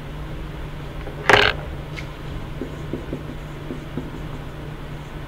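Marker writing on a whiteboard, heard as a few faint short taps and strokes over a steady low hum. There is one short, sharper noise about a second in.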